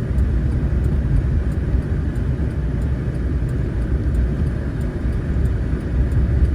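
Steady road noise inside a moving car's cabin: a constant low rumble of engine and tyres with a fainter hiss above it.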